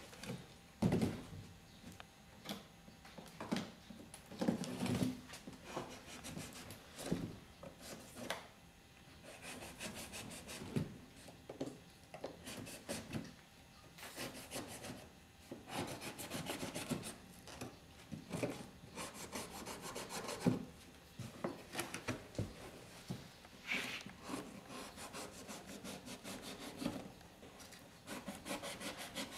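A small metal hand tool scraping and rasping along the dried seam of a molded layered-paper (papier-mâché) head, smoothing the edges, in short, irregular strokes.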